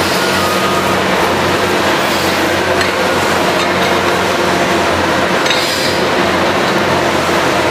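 Liebherr R 944 C tunnel excavator's boom-mounted cutting head grinding into the rock face, with broken rock clattering down, over the steady drone of the machine's engine and hydraulics.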